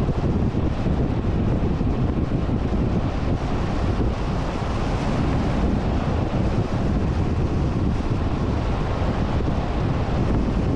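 Steady wind noise buffeting the microphone of a camera carried by a road cyclist riding at speed.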